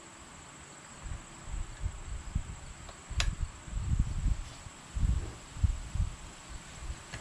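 Dull knocks and handling noise from hands working on a single-cylinder Briggs & Stratton engine, with one sharp click about three seconds in.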